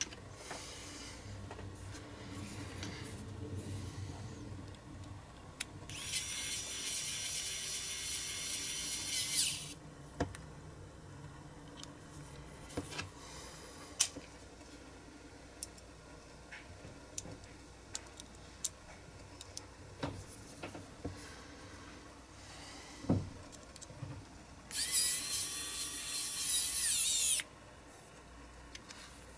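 Small pen-sized battery rotary tool whining at high speed in two bursts, the first about three and a half seconds long and the second about two and a half seconds, working on a diecast model car. Light clicks and taps of small metal parts being handled fall between the bursts.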